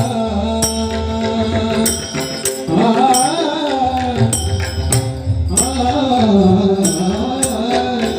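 Devotional bhajan singing: a voice holds long phrases that slide up and down in pitch over steady sustained instrumental tones, with sharp percussion strikes keeping the rhythm.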